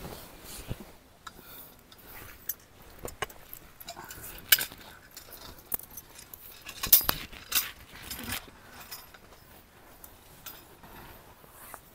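Scattered clinks and light knocks of small hard objects being handled, like metal utensils or keys, with the loudest cluster about seven seconds in.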